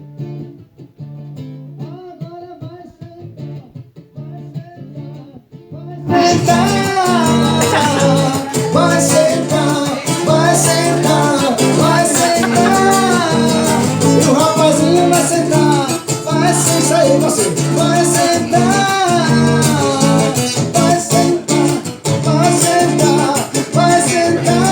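Singing with guitar accompaniment in a romantic Latin-style song. It is quiet at first and turns much louder and fuller about six seconds in.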